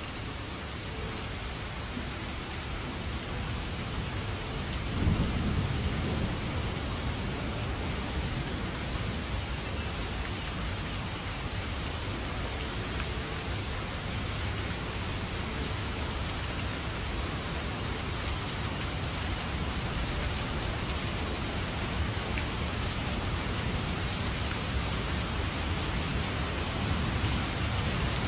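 Heavy rain falling in a steady hiss, with a low rumble of thunder about five seconds in and another rumble building near the end.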